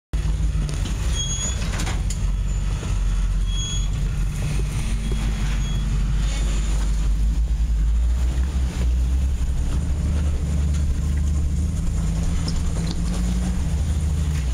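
A Jeep Wrangler's engine running steadily at low revs as it crawls over boulders.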